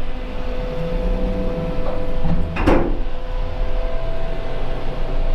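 Steady machinery hum aboard a car ferry: a low rumble under two constant tones. About two and a half seconds in comes one brief, sharp knock or clatter.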